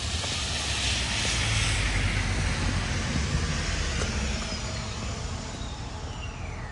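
A car passing on a wet street: tyre hiss on the wet road swells over the first two seconds and then fades away, over a low rumble. A faint high whine falls in pitch near the end.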